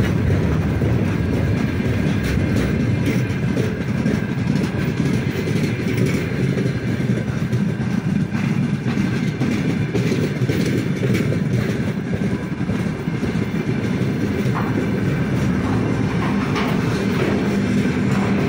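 Freight wagons rolling past close by: a steady rumble of steel wheels on the rails, with scattered clicks from the wheels passing over the rail joints.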